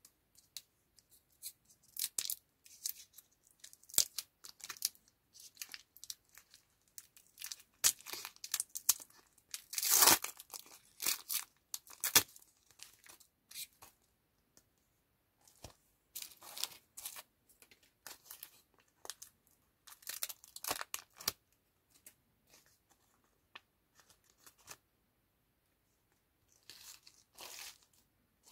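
A lollipop's paper wrapper being torn open and peeled off by hand, crinkling and tearing in bursts with short pauses. The loudest tear comes about ten seconds in.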